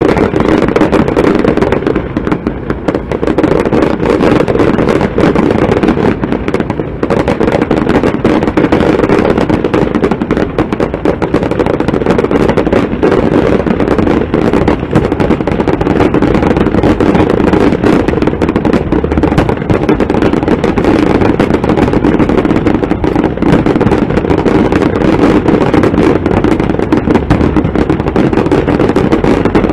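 Fireworks going off continuously, a rapid run of pops and crackles with no break, over a steady low hum.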